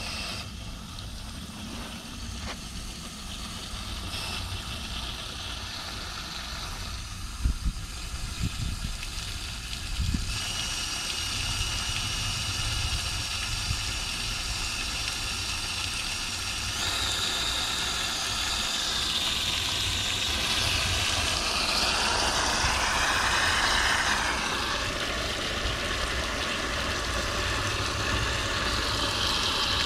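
Garden-hose water rushing through a homemade sluice box's PVC spray bars and washing down the sluice over its ribbed mat: a steady rush that grows louder, with thin whistling tones that waver up and down in pitch in the last third. A few light knocks about a quarter of the way in.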